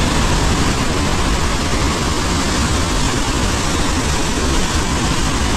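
Devi's Fall waterfall in heavy flow: a loud, steady, deep rush of falling water.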